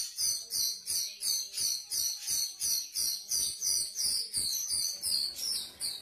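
Grosbeak starling (rio-rio) calling: short, high chirps repeated in an even, rapid series, about three a second.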